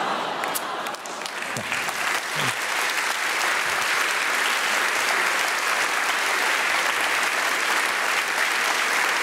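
Studio audience applauding after a punchline. The clapping builds over the first three seconds, then holds steady.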